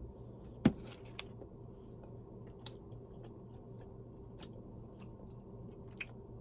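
Quiet chewing of a crunchy-coated lemon marshmallow protein puff, with a few small scattered crunchy clicks over a low steady hum. A single sharp knock less than a second in is the loudest sound.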